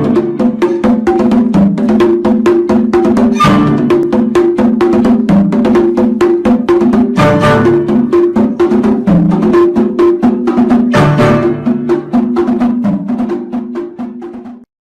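Loud background music: a fast, even clicking percussion rhythm over a repeating low note pattern, cutting off abruptly near the end.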